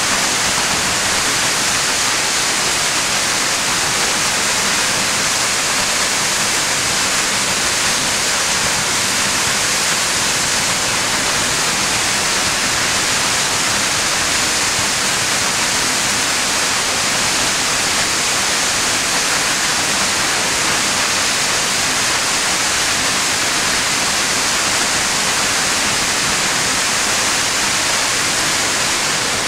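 A 177-foot waterfall pouring: a loud, steady rush of falling water.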